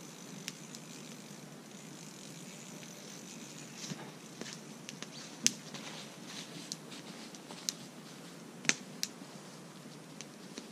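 Steady background hiss with a scattering of short, sharp clicks and taps, the loudest one about halfway through and another strong one late on.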